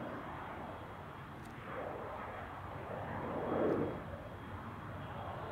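Embraer 195LR airliner's twin GE CF34-10E turbofan engines during the climb-out after takeoff: a steady, wavering rushing noise that swells briefly a little past halfway, then eases.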